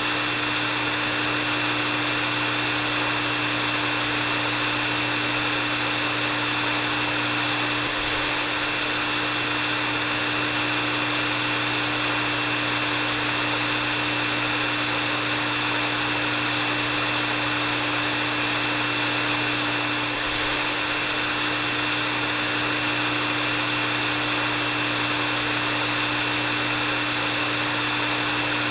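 Hair dryer running steadily on one setting: a constant rush of blown air with a low motor hum and a thin high whine held at one pitch.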